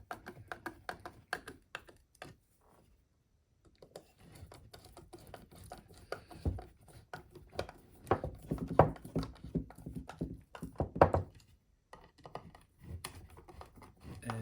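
Wood screws being tightened into a wooden stand with a hand screwdriver: irregular clicks and knocks of the driver and the wooden parts, with a short pause about two seconds in.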